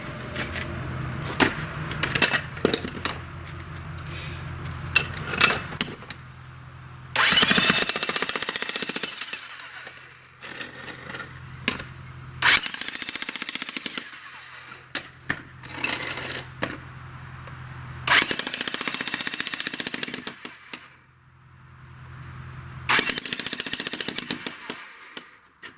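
Bosch jackhammer with a flat chisel breaking old concrete. It runs in three loud bursts of hammering, each about two seconds long. Between the bursts there are scattered knocks and clatter and a steady low hum.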